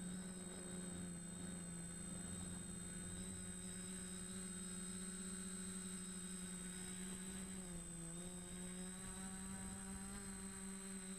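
DJI Flamewheel F450 quadcopter's electric motors and propellers, heard from the camera on board, give a steady hum. About eight seconds in, the pitch dips briefly as the throttle eases, then comes back up.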